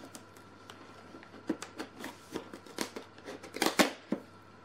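Cardboard advent calendar door being pushed in and torn open by hand: a run of sharp crackles and clicks that grows denser and louder past the middle, loudest about three and a half seconds in.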